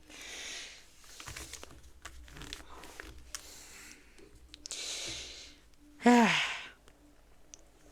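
A man breathing out heavily twice, then a short hum that falls in pitch, the loudest sound, about six seconds in. Small clicks of plastic LEGO pieces being handled come in between.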